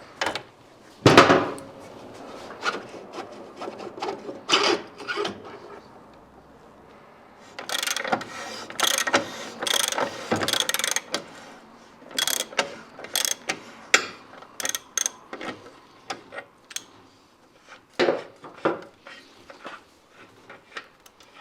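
Hand ratchet clicking in quick runs as bolts are worked, mixed with scattered knocks and clatter of tools and metal parts.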